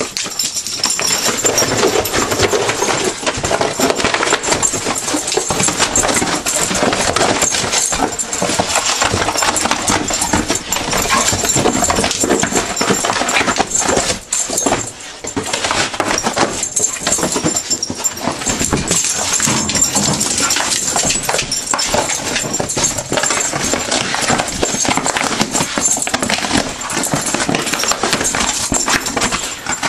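Dogs ripping and chewing apart a cardboard box: a continuous dense run of tearing, crunching and scuffling, with a short lull about halfway through.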